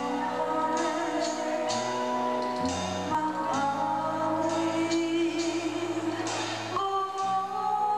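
A woman singing into a microphone over band music with a held bass part and regular cymbal strokes.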